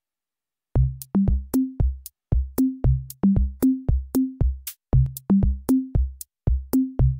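Electronic background music that starts about three-quarters of a second in: a quick drum-machine beat with short bass notes stepping up and down under it and sharp high hits between.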